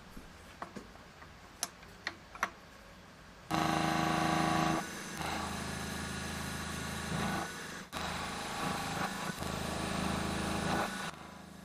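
A few light clicks and knocks, then from about three and a half seconds in a machine tool runs with a steady hum and whine while metal is cut away, its level shifting a few times and dipping briefly near the middle, stopping shortly before the end.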